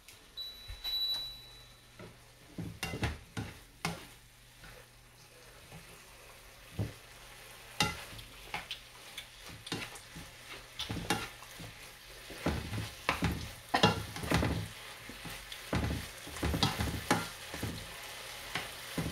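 Octopus and vegetables sizzling in a nonstick frying pan while a plastic spatula stirs and scrapes through them, giving irregular scraping clacks that come more often in the second half. A short high beep about a second in.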